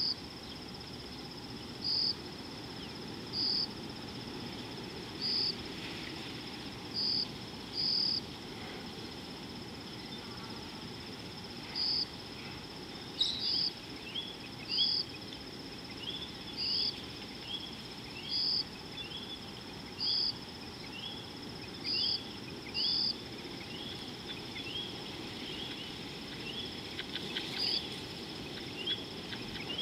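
Insects calling: a steady high-pitched trill, with louder chirps every second or two. About halfway through a quick run of short rising chirps joins in. A steady low background noise runs underneath.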